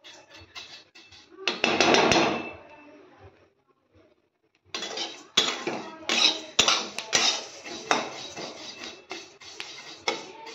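A spatula scraping and knocking against a metal kadhai while stirring vermicelli as it roasts, in quick irregular clicks and scrapes. There is a longer scrape about two seconds in and a pause of about a second in the middle.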